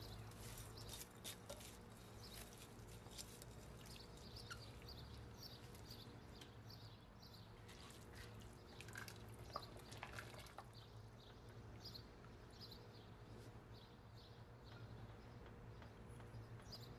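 Faint cooking sounds at a stainless steel pot: soaked basmati rice settling into broth and a wooden spoon working it, heard as scattered soft clicks and small patters over a low steady hum.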